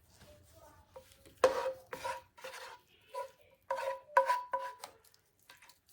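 Utensil scraping the hot taco meat mixture out of its cooking pan in a series of short scrapes with a slight ringing tone. The loudest scrape comes about a second and a half in.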